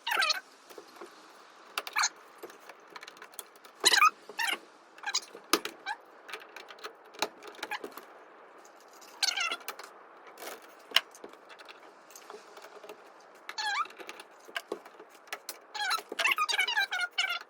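Scattered sharp clicks and taps of hand tools and wire being worked while wiring a breaker panel, with several short squeaks whose pitch wavers, the last few near the end.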